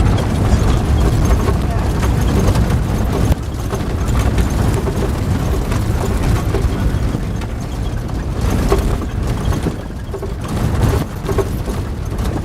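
Indistinct voices of people talking over a steady low rumble.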